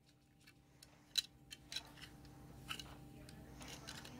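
Faint, scattered clicks and taps of a small plastic toy van being handled, its parts being taken off, over a faint steady hum.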